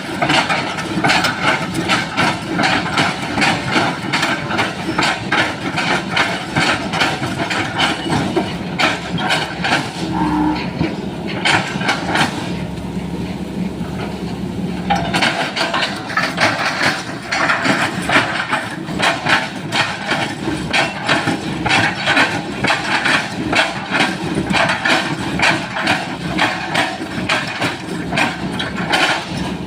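Sany SY135 excavator running hard while its bucket chops felled oil palm trunks, giving rapid repeated knocks at about two a second over the steady engine sound. The knocking stops for about two seconds near the middle, leaving only the engine, then resumes.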